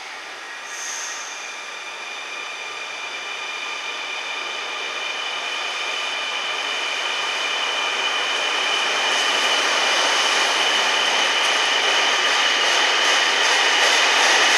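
Ex-NS 1600/1800-class electric locomotive hauling a passenger train, approaching on the line: steady train noise with several high, steady whining tones, growing louder throughout.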